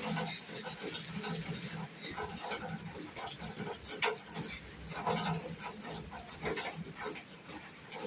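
Rain falling, with many irregular drops tapping at uneven intervals over a steady patter.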